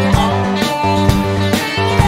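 Backing-track music for a live band: a steady beat about twice a second over held bass notes and sustained pitched tones.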